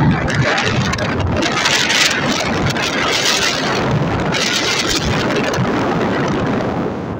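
Wind rushing over a phone's microphone on a moving motorcycle, with the bike's running noise underneath. A steady, loud rushing that swells in gusts a few times.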